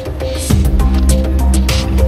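Background music with a steady beat, deep held bass notes that change about half a second in and again near the end, and ticking percussion on top.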